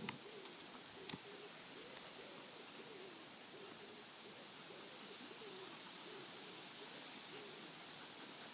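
A low, wavering animal call repeated again and again over a steady hiss, with a few faint sharp cracks about one and two seconds in.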